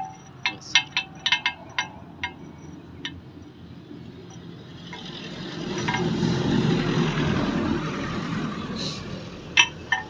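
Several light metallic clinks with a short ringing tone in the first three seconds. Then a passing vehicle's broad rushing noise swells over about two seconds and fades out, and two more clinks come near the end.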